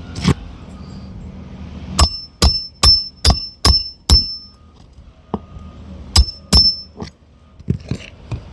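A hammer driving a roofing nail by hand through an asphalt shingle into the roof decking: a run of six sharp, ringing metal strikes about two a second, then two more a couple of seconds later and a few lighter taps.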